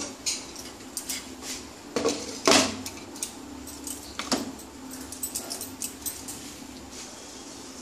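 A glass cooking lid is set down on a pan with several clinks and knocks, the loudest about two to two and a half seconds in. After that come only scattered faint ticks from the chickpea curry simmering under the lid.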